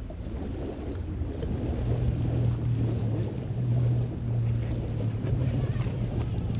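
A motor vehicle running: a steady low engine hum over a rumble, growing louder about two seconds in.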